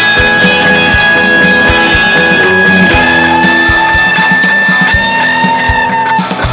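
Instrumental rock music with guitar and a steady drum beat, no singing; a high held note breaks off near the end.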